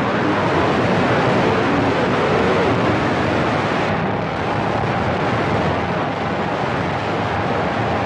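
Cobra CB radio receiver hissing with loud, steady static on an open channel during long-distance skip, with faint warbling tones of distant stations buried in the noise.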